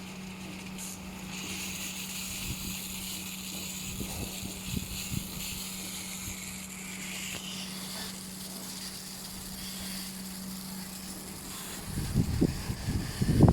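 CB-730 rollover bus and truck washing machine running with a steady hum and a high hiss; the hum stops near the end, where loud buffeting wind on the microphone takes over.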